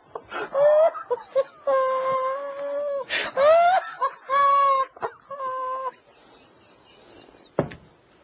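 A man's uncontrollable laughter, stifled behind his hand: about five long, high-pitched held notes with sharp breaths between them, dying away about six seconds in. A short knock comes near the end.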